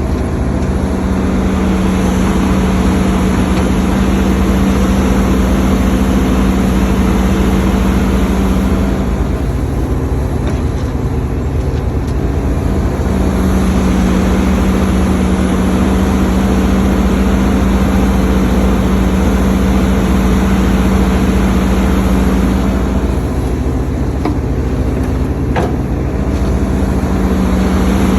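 Hidromek HMK230LC excavator working, its diesel engine and hydraulics running under load. A strong steady drone holds for long stretches, easing off twice in short lighter spells between them. There is one sharp knock near the end.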